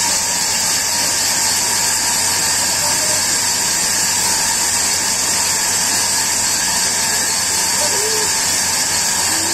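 A steady, loud hiss with a faint constant hum under it, and faint voices now and then.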